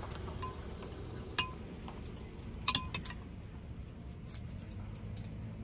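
A metal spoon clinking a few times against a glass bowl while scooping out an oil seasoning mix, the sharpest clinks about one and a half and nearly three seconds in, each with a short ring.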